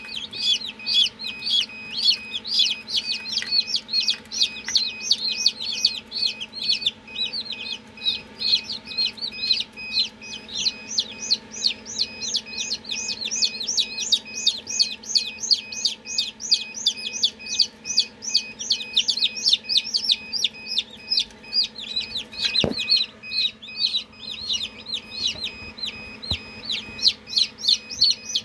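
Newly hatched chicks peeping continuously, a fast run of short high chirps, over a steady low hum. A single knock sounds about three-quarters of the way through.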